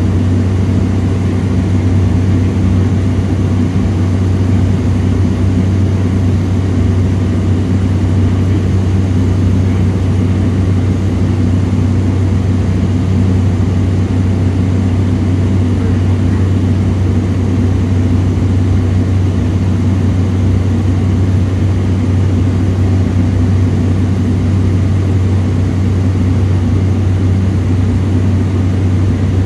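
Cessna Caravan's single turboprop engine and propeller heard inside the cabin in flight: a loud, steady drone with a strong deep hum that does not change.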